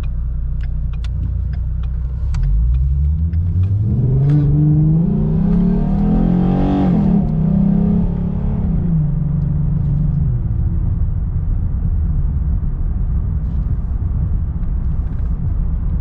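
2015 Ford Mustang's 3.7-litre V6, breathing through long-tube headers, an X-pipe and Magnaflow mufflers, accelerating: its pitch rises for about five seconds, wavers briefly near the top, holds, then drops back about nine seconds in. The wavering fits the hesitation or hiccup the owner reports when passing 3,000 rpm, a dull rhythmic stutter like bouncing off the rev limiter.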